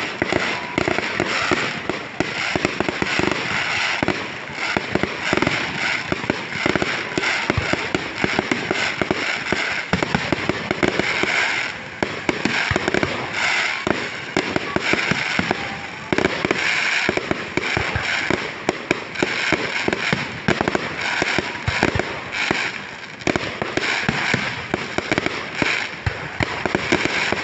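Fireworks display: a dense, continuous barrage of bangs and crackling bursts, loud throughout.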